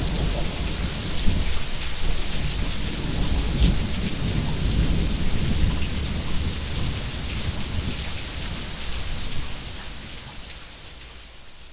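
Steady rain with thunder, the hiss of the rain over a deep rumble, gradually fading out near the end.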